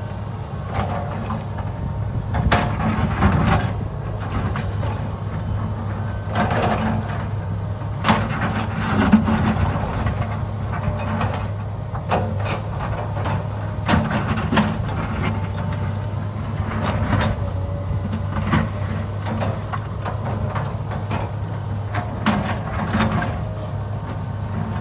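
Excavator engine running steadily at work, with irregular metallic clanks and scrapes every few seconds, typical of the bucket digging and moving rock and soil.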